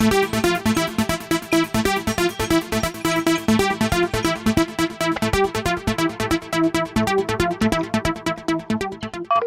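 Background electronic music: a fast, even run of rapid repeated synthesizer notes over a steady beat.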